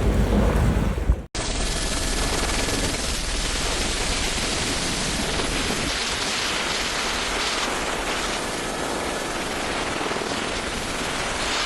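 Burning vegetation in a wildfire crackling and popping densely and steadily. It follows a cut a little over a second in, after a low rumbling noise.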